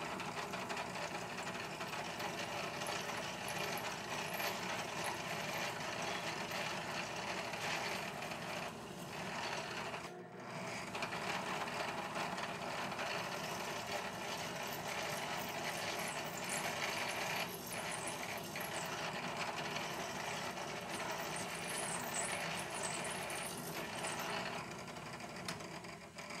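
Drill press running steadily while a small bit drills pin holes through a clamped block, with a brief drop about ten seconds in.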